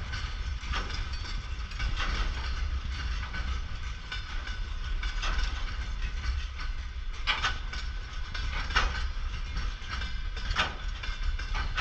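Freight train of boxcars and gondola wagons rolling past at speed. Its low steady rumble is broken by wheel sets knocking over rail joints every second or two.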